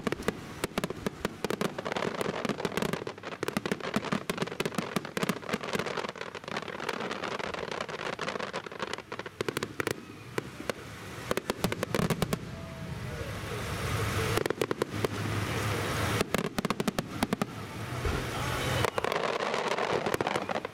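Fireworks display: a rapid, dense string of bangs and crackles from many shells bursting in quick succession. It thins out briefly near the middle, then builds to a thick barrage again toward the end.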